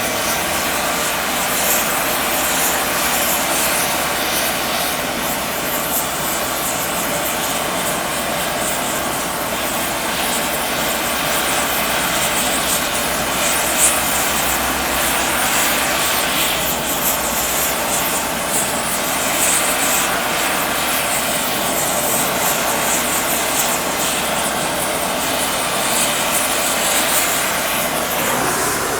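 Oxy-fuel rosebud heating torch burning with a steady rushing flame noise, heating a quarter-inch steel plate for bending.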